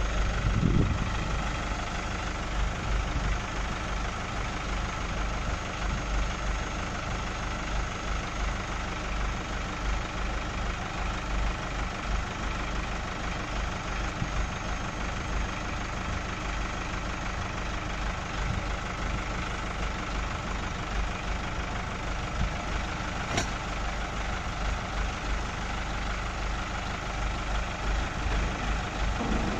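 Hydraulic system of a mobile LED stage truck running with a steady drone as the truck's side wing is lowered out into a stage floor. One sharp click about 23 seconds in.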